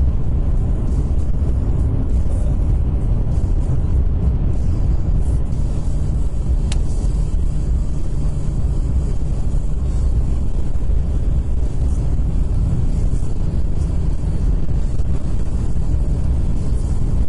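Steady low road and wind rumble inside a car cruising on a dual carriageway, picked up by the dashcam, with a single brief tick about seven seconds in.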